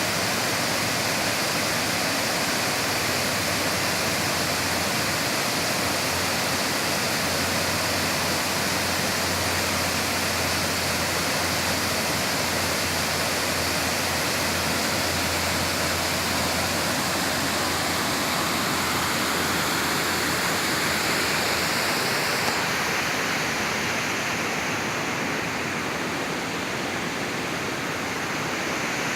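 Rain-fed monsoon waterfall, swollen after an hour of rain, pouring in a steady rush of water, its hiss turning a little duller over the last few seconds.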